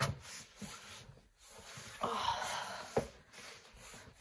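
Footsteps knocking on loose boards and debris, two sharp knocks about three seconds apart, with a noisy breath about two seconds in.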